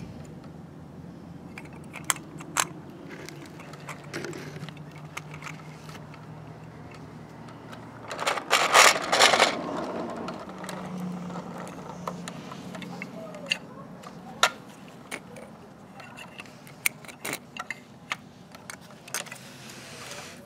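Small plastic and metal clicks and clacks from a diecast toy garbage truck's Curotto-Can grabber arm and a little toy trash cart being handled, with a louder rushing noise lasting about a second and a half about eight seconds in, over a faint steady low hum.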